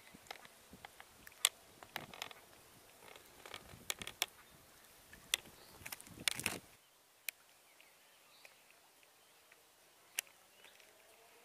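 Quiet lakeside outdoor ambience with scattered sharp clicks and ticks. About seven seconds in, the background drops away abruptly and only a few clicks follow.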